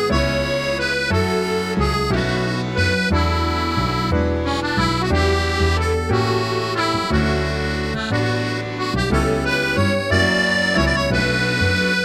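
Background music: a bouncy accordion-led tune over a bass line, notes held and changing in a steady rhythm.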